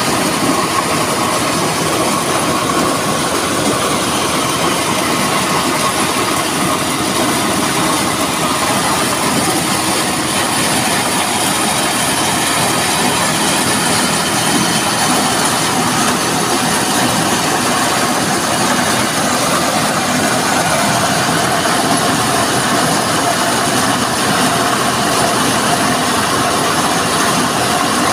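Motor-driven corn sheller with blower running steadily while shelling corn cobs: a loud, dense, unbroken mechanical clatter and rush.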